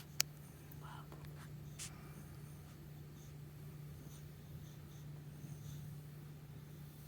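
Quiet room tone with a steady low hum, a sharp click just after the start, another faint click about two seconds in, and light scratchy rustling.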